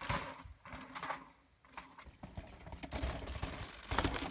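Radon downhill mountain bike running over a dry dirt and rock trail: tyres crunching on grit and the chain and frame clattering, with a short near-silent gap about a second and a half in and denser clatter from about three seconds in.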